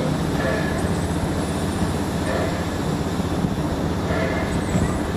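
Steam locomotive E 901 standing with steam hissing from around its cylinders and wheels, over a steady low hum.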